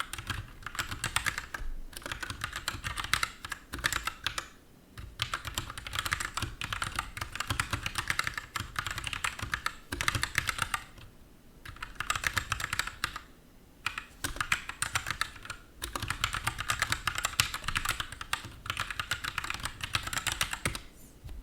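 Fast typing on an Anne Pro 2 60% mechanical keyboard with Gateron switches and pudding keycaps: rapid, continuous key clacks in runs, broken by a few short pauses.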